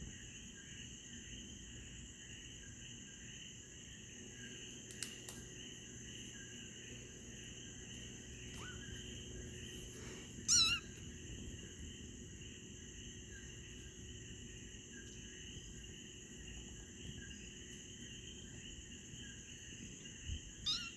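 A kitten gives one short, wavering mew about halfway through, and a fainter cry near the end, over a steady high-pitched background hum.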